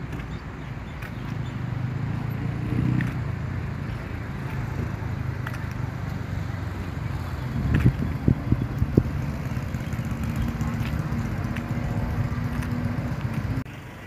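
An engine running with a steady low hum, with a few sharp knocks about eight seconds in; the sound cuts off abruptly near the end.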